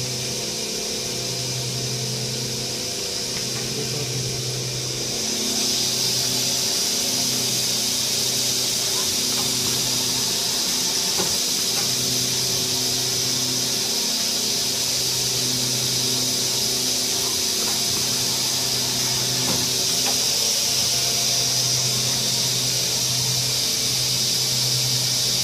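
Friulmac machine's motors running in automatic cycle: a steady high hiss that grows louder about five seconds in, over a low hum that breaks off briefly every second or two.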